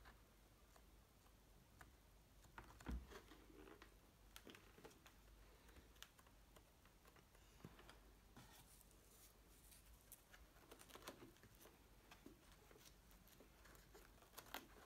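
Near silence with faint, scattered small clicks and taps of hands handling a motorcycle helmet's plastic shell and liner, a little busier in the middle.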